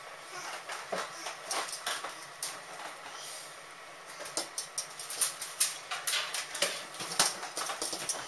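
Irregular light clicks and rustling of cut vegetables (bean sprouts and green onions) being handled in a stainless-steel colander and dropped into a ceramic pot, growing busier about halfway through.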